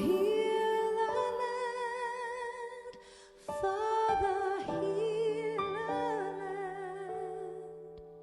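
Slow worship song: a voice holding long notes with vibrato, sung without clear words, over sustained accompanying chords.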